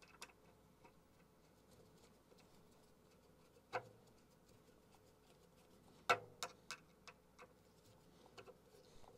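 Faint clicks and ticks of a screwdriver turning a screw into a water heater's sheet-metal jacket to fasten a grounding wire. A sharper click comes nearly four seconds in and the loudest about six seconds in, followed by a run of lighter ticks.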